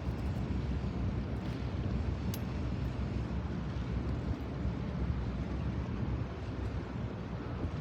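Steady low rumble with wind buffeting the microphone, plus a faint tick or two.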